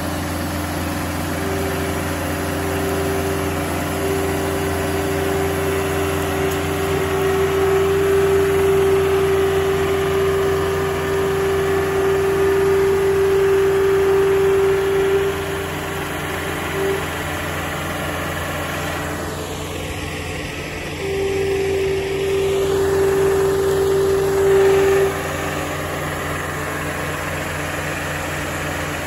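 House Tug tracked mobile-home mover's engine running steadily, with a steady higher whine over it for a long stretch early on and again for a few seconds near the end, while the machine works.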